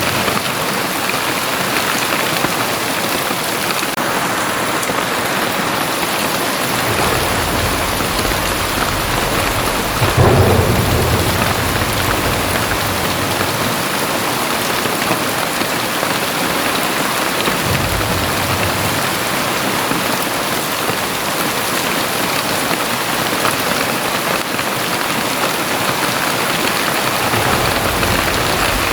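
Very heavy rain pouring steadily. Low rolls of thunder rumble under it several times, the loudest starting suddenly about ten seconds in.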